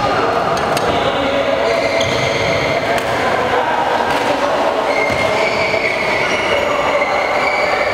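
Steady loud din of an indoor badminton hall, with a few sharp cracks of rackets striking a shuttlecock.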